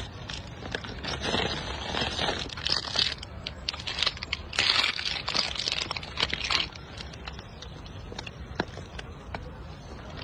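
A macaque biting and chewing raw carrot close to the microphone: crunching comes in two bouts, about a second in and again from four and a half seconds, with scattered small crunches between, over a low steady rumble.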